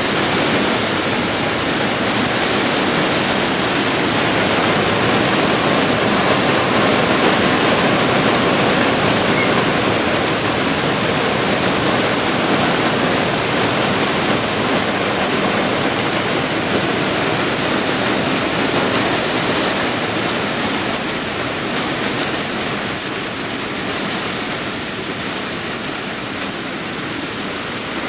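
Moderate rain downpour: a steady, dense hiss of rain falling, easing a little near the end.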